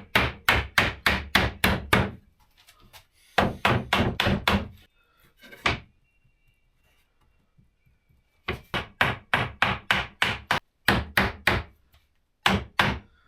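Hammer striking wood in quick runs of blows, about four a second, with pauses of a second or more between the runs.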